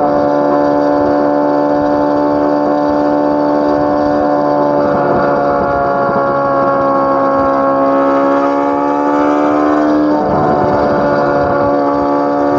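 Chevrolet Corvette C8 Z06's naturally aspirated flat-plane-crank V8 exhaust, running at fairly steady revs. Its pitch sags slightly through the middle, climbs again, and changes tone about ten seconds in.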